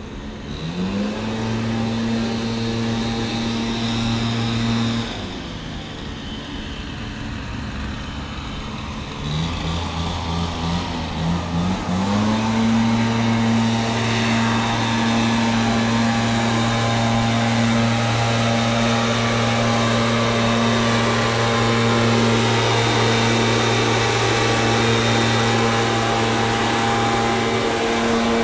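A small engine revving up and running at a steady high speed. It drops back partway through, is blipped up again in a few quick steps, then holds steady until it eases off near the end.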